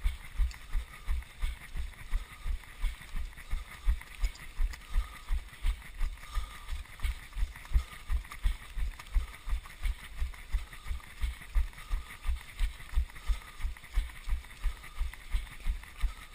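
Running footfalls of the GoPro wearer on a paved path: steady low thuds about three times a second, at a fast race pace.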